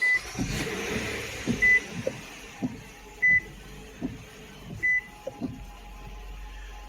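2016 Nissan Pathfinder being switched on: a dashboard warning chime beeps four times at an even pace, about every second and a half, while the engine starts and settles to an idle. A few light knocks of handling in the cabin.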